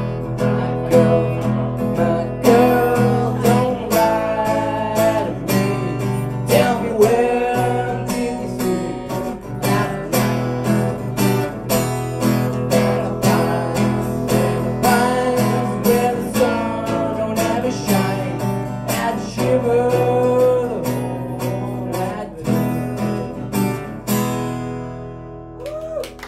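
Acoustic guitar strummed steadily under a young man's singing voice, a live solo song. The strumming stops about two seconds before the end, leaving the last chord ringing.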